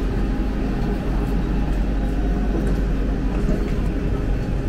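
Steady low rumble of an underground railway station platform, with a double-deck regional train standing at the platform.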